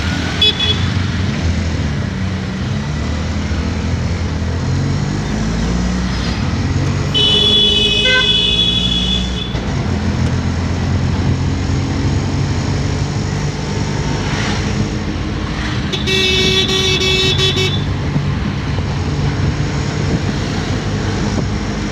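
Road traffic heard from a moving vehicle: a steady engine drone with vehicle horns honking twice, once about seven seconds in for a couple of seconds and again about sixteen seconds in for nearly two seconds.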